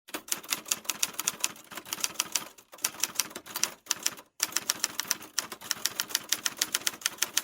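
Rapid typing keystrokes, sharp clicks at about seven a second, in three runs with two short pauses.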